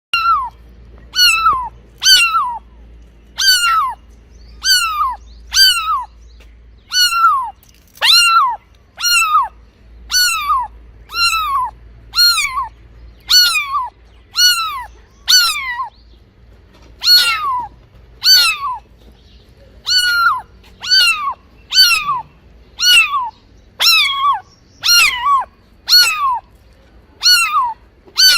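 A kitten meowing over and over, about once a second. Each meow is short, high and falls in pitch.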